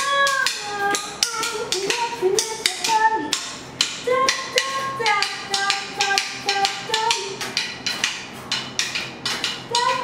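A small band playing unplugged: drumsticks tap out a quick rhythm while a woman sings a melody over bass and electric guitar.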